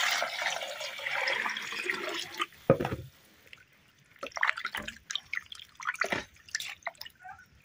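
A stream of water pours into an aluminium pot of raw chicken pieces and stops after about two and a half seconds, followed by a knock. Then a hand swishes and rubs the chicken in the water, with scattered splashes.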